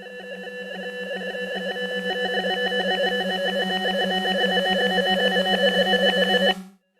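Electronic swell sound effect: a synthetic buzzing drone with a fast flutter that grows steadily louder for about six and a half seconds, then cuts off abruptly near the end; a new swell begins quietly straight after.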